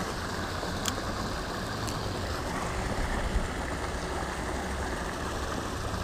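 Creek water rushing and splashing over a concrete low-water crossing, a steady even rush.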